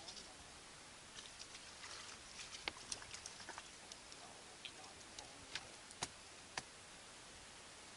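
Faint, irregular clicks and taps from fishing tackle and handling as a small fish is reeled up and lifted out of the water, with a few sharper ticks standing out over several seconds.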